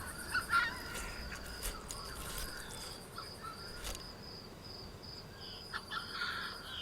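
Steady high-pitched insect trill, cricket-like, with a few short faint chirps near the start and again near the end.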